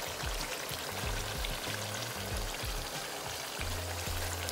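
Background music with a low bass line over a steady sizzling hiss with fine crackles, from bone-in mutton curry cooking uncovered in oil in a pan.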